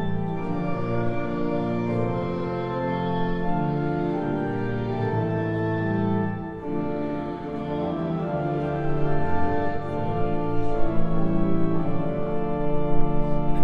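Organ music in slow, sustained chords, with a short break about halfway through before it picks up again.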